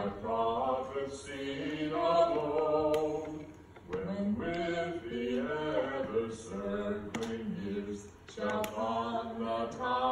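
Voices singing a song in long held notes, in phrases broken by short pauses about 4 and 8 seconds in.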